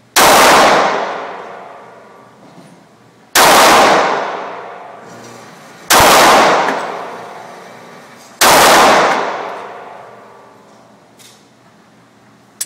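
Glock 19 9mm pistol fired four times, a shot about every two and a half seconds, each with a long echoing tail.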